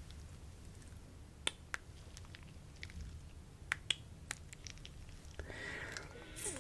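Close-miked ASMR mouth sounds: a handful of soft, wet lip and tongue clicks spread over a few seconds, then a breathy exhale lasting about a second near the end.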